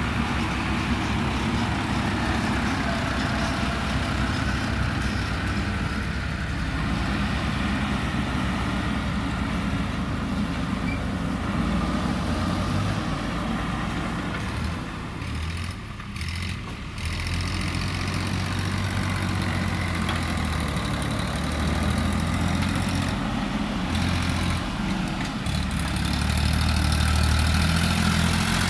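JCB backhoe loader's diesel engine running as the machine works, its pitch and level shifting with the load, easing off briefly about halfway through and getting louder again near the end.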